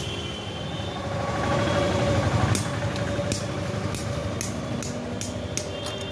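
Blacksmith's hand hammer striking iron on a small anvil: sharp metallic blows at about two and a half a second, starting about halfway through, over a steady low rumble.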